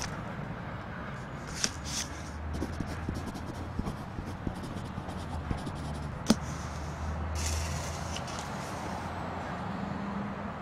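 A paper banknote and wallet being handled, rustling in short bursts, and a pen writing on the note, with light clicks and one sharp click about six seconds in. A steady low hum lies underneath.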